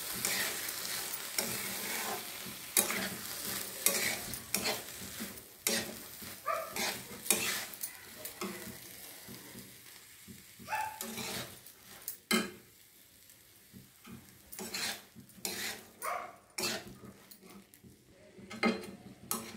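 Metal spatula scraping and knocking against a metal kadai as boiled whole green moong is stirred and fried in onion-tomato masala, over a frying sizzle. The sizzle fades over the first half, and the spatula strokes come irregularly, thinning out near the end.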